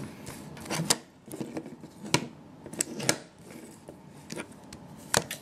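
Plastic clicks and clacks of a Rubik's cube being handled and its layers turned, a few sharp irregular clicks spread out.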